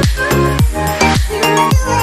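Background electronic dance music with a steady kick-drum beat under held synth tones.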